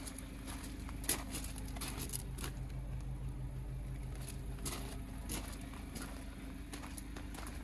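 Scattered light crunches and clicks of footsteps on gravel, over a steady low hum.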